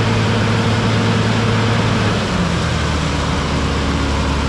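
Fire truck engine running the water pump under load, with the rushing hiss of the roof-mounted water cannon spraying. About two seconds in, the engine note steps down to a lower pitch as the discharge is shut off.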